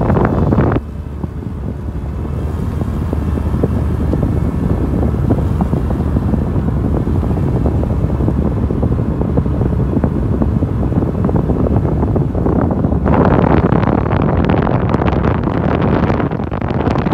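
Car driving slowly, a steady low road and engine rumble, with wind rushing over the microphone. The wind noise drops away suddenly about a second in and comes back strongly near the end.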